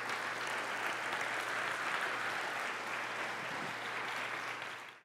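Audience applauding steadily, cut off suddenly at the very end.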